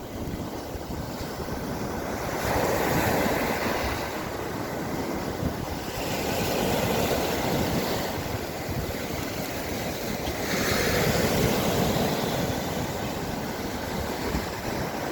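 Sea waves breaking and washing on the shore, swelling about three times, with wind rumbling on the microphone.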